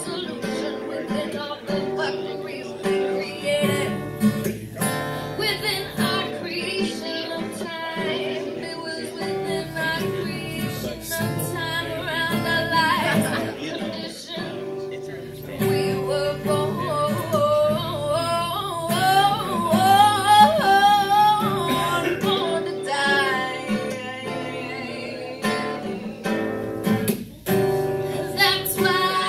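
A woman singing live while accompanying herself on a strummed acoustic guitar, with wavering vibrato on long held notes in the second half.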